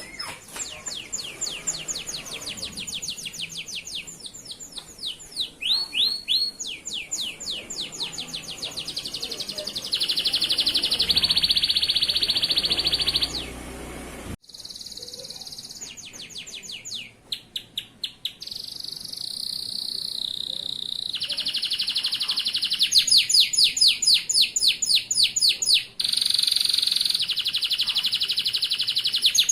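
Male local canary singing continuously in high, rapid trills: quick runs of falling notes alternating with long, buzzy, rolling phrases. The song breaks off abruptly for a moment about halfway through.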